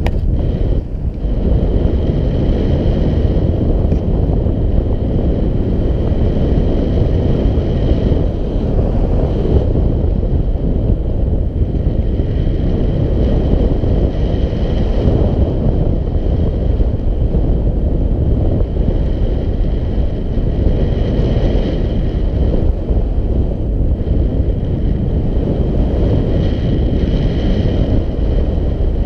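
Airflow of a paraglider in flight buffeting a GoPro Hero 4 Black's microphone: loud, steady wind noise, heaviest in the low end, with a faint higher hiss that swells and fades a few times.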